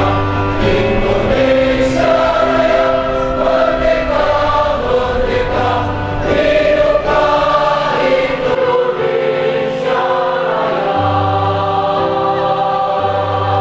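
A choir singing a slow song in sustained chords, each chord held for a second or more, with the men standing nearby singing along.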